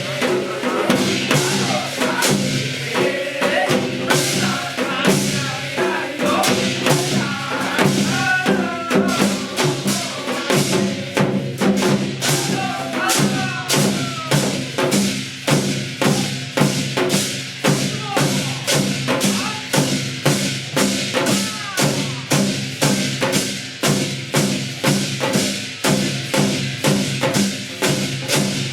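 Korean shamanic gut music played live: percussion beating a steady rhythm of about three strokes a second, with a wavering melodic line over it in the first half.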